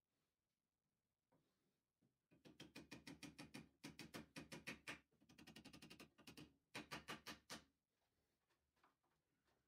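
Rapid light hammer taps, about five or six a second, driving a small pin held in pliers into a plywood disc. The taps come in three runs with short breaks, the first the longest.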